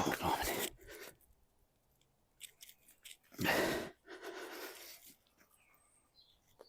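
A man's strained breaths, three heavy puffs of breath with the loudest about halfway through, from the effort of forcing a rubber plug repair strip into a tyre puncture.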